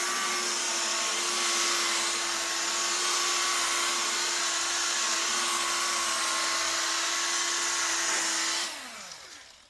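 Small, lightweight rotary buffer running steadily, its pad working compound over fresh clear coat, with a held motor whine and hiss. Near the end it is switched off and its pitch falls as it spins down.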